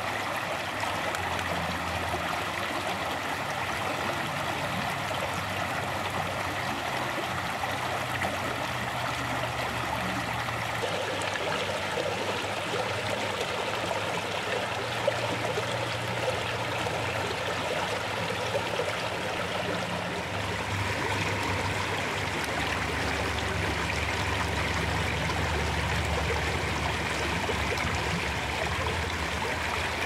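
Shallow river running steadily over rocks, a constant rush of water, with a few light clicks a little past the middle.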